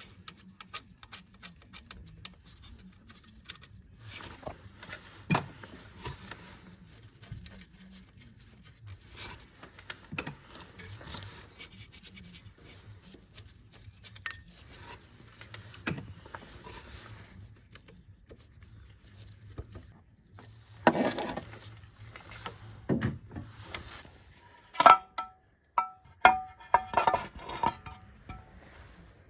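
Hand tools and metal engine parts clinking and knocking as a pulley is worked off the engine: scattered clicks and clanks, a longer clatter about two-thirds of the way through, and a cluster of louder ringing metal knocks near the end.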